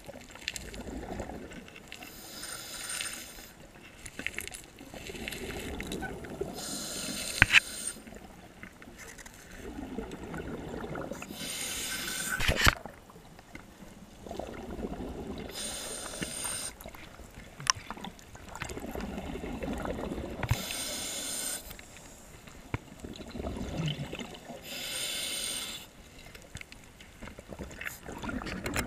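Scuba diver breathing through a regulator: a short hiss on each inhale alternating with the low bubbling of exhaled air, one breath about every four to five seconds. A few sharp knocks of gear or hands against rock come in between.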